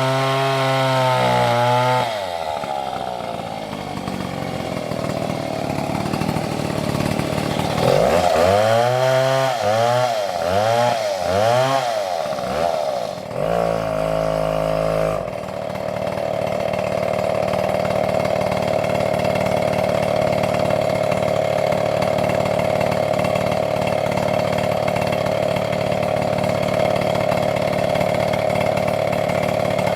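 Stihl MS720 chainsaw running, its engine pitch rising and falling over and over, about once a second, as it is revved in the cut. It then holds a steady, even pitch for the second half.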